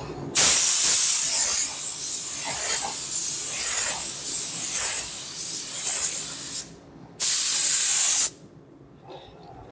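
Compressed-air gravity-feed paint spray gun spraying: a long steady hiss of about six seconds, a short pause, then a second burst about a second long that cuts off sharply.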